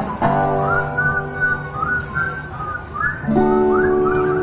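Acoustic guitar chords strummed and left ringing, a new chord about three seconds in, with a whistled melody wavering over them: the closing bars of the song.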